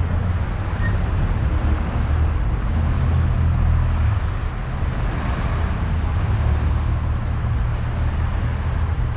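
Steady low engine drone of vehicles or aircraft running throughout, with a few faint high-pitched tones.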